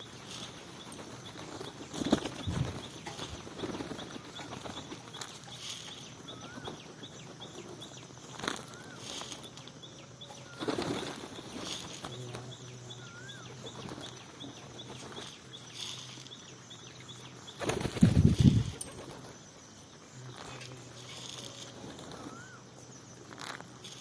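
Birds flapping their wings in several short bursts, the loudest lasting about a second a little after the middle, with a few brief high chirps in between.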